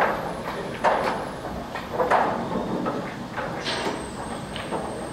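Pool balls knocking, a string of sharp clacks, the three loudest in the first two seconds or so and fainter ones after, over the steady hum of a pool hall.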